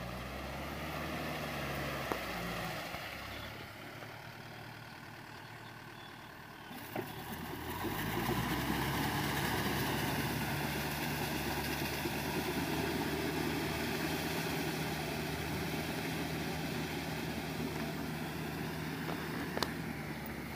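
Kubota tractor's diesel engine running steadily under load while its rotary tiller churns wet paddy mud. It grows louder about eight seconds in as the tractor comes close, and holds a steady engine note after that.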